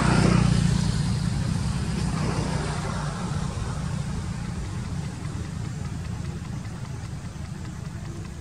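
A motor vehicle's engine passing by, loudest in the first second and then fading, over a steady low engine hum.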